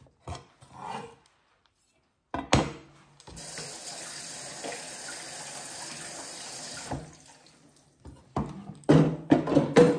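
Kitchen tap running steadily for about four seconds. Before and after it come sharp wooden knocks of a kitchen knife and wooden cutting board being handled, loudest near the end.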